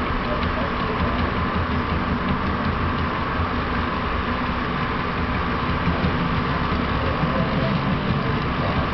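HO scale model freight train running steadily along the layout's track: small wheels rolling on rail and the locomotive's motor, heard over steady room noise.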